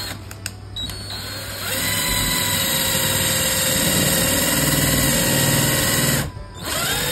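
10.8 V cordless drill boring a hole into a wooden board. The motor spins up about a second and a half in and runs steadily at speed, stops briefly near the end, then spins up again.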